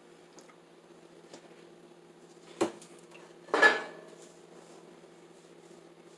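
A spoon knocking twice against a stainless steel mixing bowl as muffin batter is scooped out. The second knock is louder and rings briefly.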